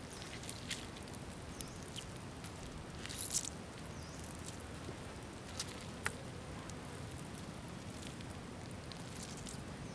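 A ripe star fruit being squeezed in a hand, squelching, while its juice drips and trickles onto the leaves below: scattered soft ticks, with a louder wet crackle about three seconds in.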